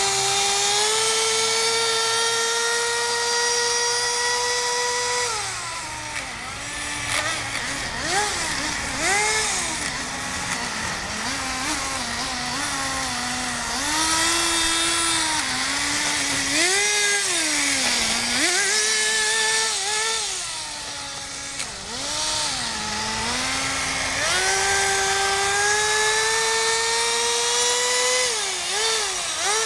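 Kyosho Nitro Blizzard RC snowcat's .11 nitro engine running at high revs, its pitch climbing slowly over the first few seconds, then dipping and rising again and again as the throttle is worked, with a second long climb near the end.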